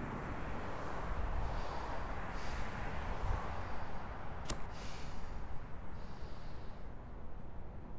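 Steady background hiss and low rumble of traffic ambience heard inside a car, with one short click about four and a half seconds in.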